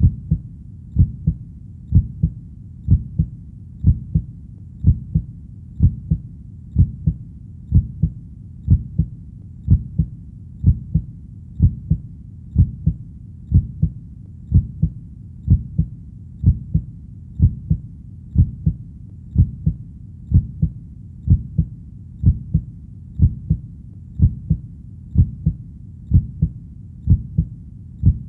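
Heartbeat: a steady 'lub-dub' double beat at about one beat a second, low and dull, over a faint steady low background.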